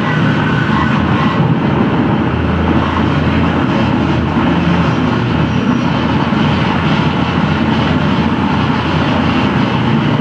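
Live harsh noise: a loud, unbroken wall of distorted electronic noise from mixers, effects pedals and a laptop, heaviest in the bass.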